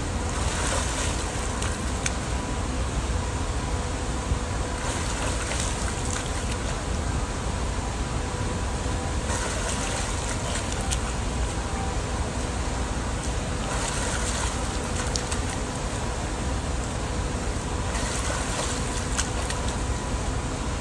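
Pool water splashing as a swimmer strokes and kicks, in about five bursts a few seconds apart, over a steady low rumble and a faint steady hum.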